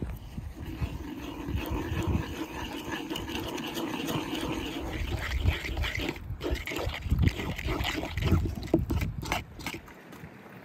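Hands-on cooking sounds: a spoon mixing ground spices in a clay bowl, then a wooden spatula stirring and scraping a thick mixture in a pan in a run of short strokes. It turns quieter near the end.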